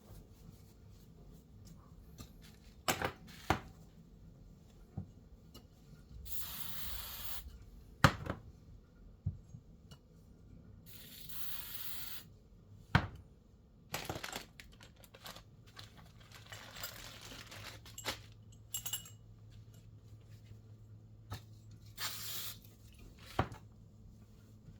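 Sharp clinks and knocks of metal parts being handled on a bench, with three short bursts of hissing noise, each about a second long.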